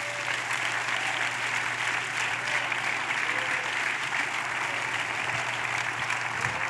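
Congregation applauding steadily, with a few faint voices calling out.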